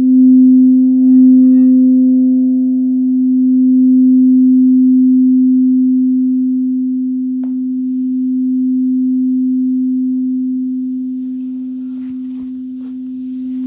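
A singing bowl sustains one steady low tone whose loudness swells and dips slowly. A fainter higher overtone fades out about halfway through, and a few faint ticks come near the end.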